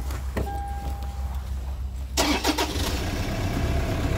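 Toyota Prado's 1KD-FTV 3.0-litre four-cylinder common-rail turbo diesel being started from cold: a short electronic beep about half a second in, then about two seconds in the engine cranks, fires and settles into a steady idle.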